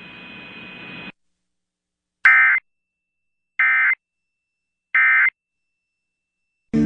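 Emergency Alert System data tones relayed over the radio: three short, identical warbling bursts, each about a third of a second long, about a second and a quarter apart. These are the SAME end-of-message bursts that close the severe thunderstorm warning. Before them, faint radio hiss cuts off about a second in.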